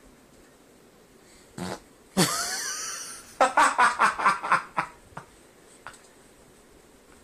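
A loud fart: a short puff, then a long hissing blast that breaks into a quick run of about eight sputtering pops.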